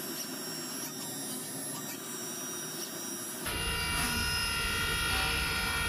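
Haas UMC-500SS five-axis CNC mill machining a copper slug: a steady hiss of coolant with several steady whining tones from the machine. About three and a half seconds in, the sound abruptly gets louder, with a low rumble and more whining tones, as the spindle comes over the part.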